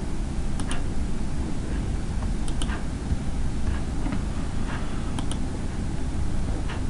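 A few scattered, irregular clicks of a computer keyboard and mouse over a steady low hum from the recording.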